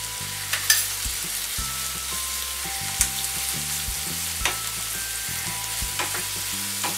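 Chopped onions and tomatoes frying in oil in a nonstick pan, sizzling steadily while a wooden spatula stirs them. A few sharp knocks and scrapes come from the spatula against the pan.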